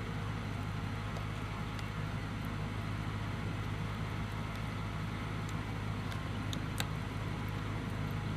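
A vehicle engine running steadily, giving a low even hum, with a couple of faint clicks about seven seconds in.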